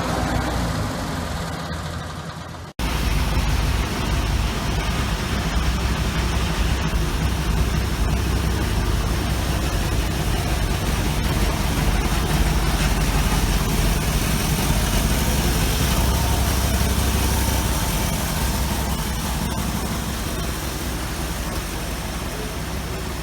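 A car engine idling steadily, with a low rumble and a constant hiss above it; the sound breaks off abruptly about three seconds in and comes straight back.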